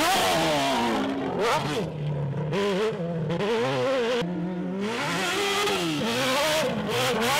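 Off-road tube-frame buggy's engine revving hard, its pitch rising and falling as the throttle is worked, with two short dips about three and four and a half seconds in.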